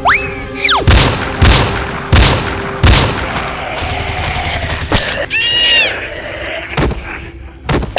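Cartoon sound effects: a quick whistle that rises and falls, then four loud bangs in a row, a little over half a second apart, followed by a short springy glide and two more hits, over a steady music bed.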